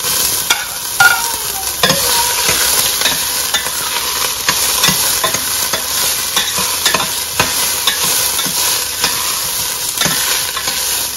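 Garlic and onions sizzling in hot oil in a pan as they are stir-fried, with a steady hiss and frequent irregular clicks and scrapes of the stirring utensil against the pan.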